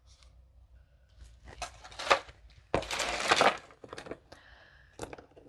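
Small clicks and taps of costume earrings being handled and set down, with a louder crinkling rustle lasting under a second about three seconds in.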